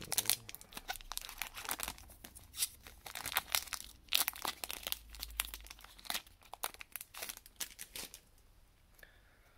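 Foil wrapper of a Pokémon trading card booster pack crinkling and tearing as it is ripped open by hand, a run of irregular crackles that dies down about eight seconds in.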